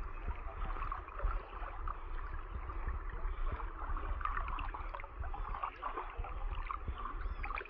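Floodwater sloshing and splashing with many small lapping sounds as people wade through it, over a steady low rumble.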